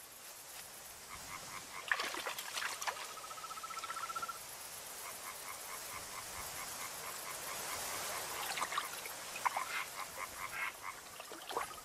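Frogs croaking: series of short, evenly repeated pulsed calls, with one longer even trill about three seconds in, over a steady high hiss.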